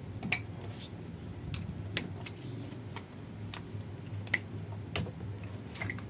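About eight sharp, irregular clicks from an Ozito angle grinder's sticky power switch and its lock being pushed and handled, over a low steady hum. The loudest two come about four and five seconds in.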